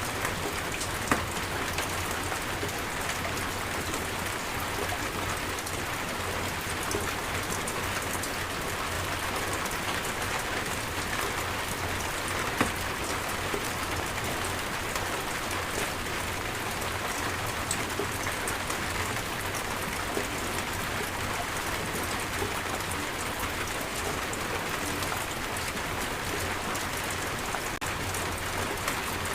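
Steady rain falling in an even hiss, with two sharp louder clicks, one about a second in and one about twelve seconds in.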